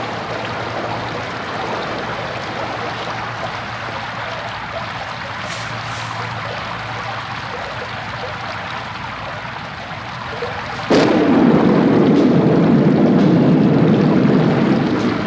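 Steady falling rain, with a sudden crack of thunder about two-thirds of the way through that goes on as loud low thunder for about four seconds.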